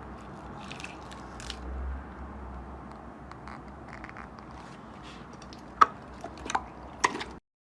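Slime being squeezed and worked by hand: a steady sticky squishing and scraping with soft crackles, then a few sharp pops in the last two seconds, cutting off abruptly just before the end.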